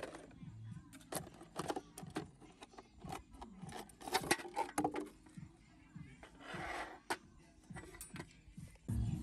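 Irregular series of sharp knocks, clicks and scrapes, with a short rustle about seven seconds in; background music drops out at the start and comes back near the end.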